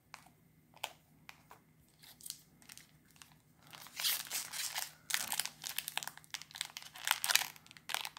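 Foil wrapper of a Magic: The Gathering booster pack being picked at with the fingers in a few sharp crackles, then torn open and crinkled. From about four seconds in the crackling is dense and louder.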